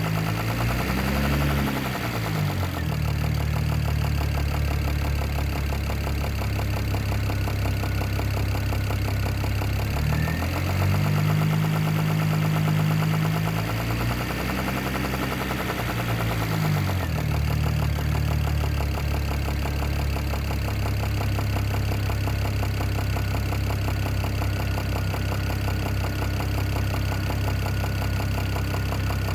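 BMW E92 335i's N54 twin-turbo straight-six idling and revved up twice, briefly at the start and for several seconds about a third of the way in, then settling back to idle. It runs with a knocking that the owner thinks comes from the top end of the engine but is not sure.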